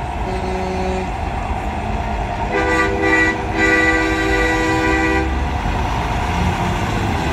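A semi truck's multi-note chord air horn sounds one blast of nearly three seconds, starting about two and a half seconds in, over the steady rumble of trucks passing in a convoy.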